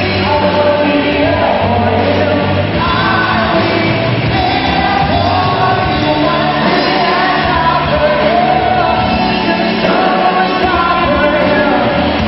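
Live rock band playing, with a male singer over electric guitars, bass guitar and drums.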